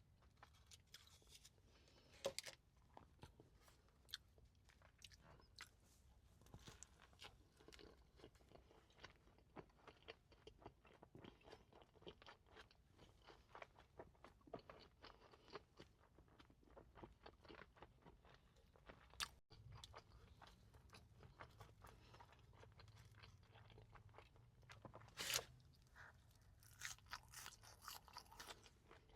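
Close-miked chewing and crunching of crispy fast food: a steady run of small wet clicks, with a few louder crunches about two seconds in and near the end.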